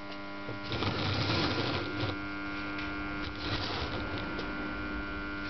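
Single-phase capacitor induction motor from an electric lawnmower, powered with its capacitor disconnected, giving a steady humming growl. A rougher buzz swells about a second in and again past three seconds. This growl is the characteristic sign of a dead capacitor.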